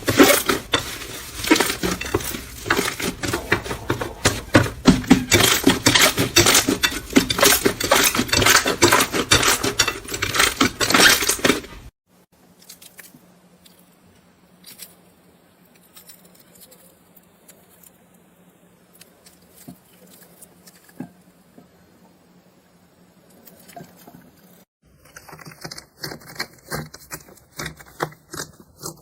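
Slime being squeezed and worked by hand, with dense crackling and popping clicks. The crackling stops suddenly about twelve seconds in. Much fainter scattered clicks follow over a low hum, and then louder clicking starts again about four seconds before the end.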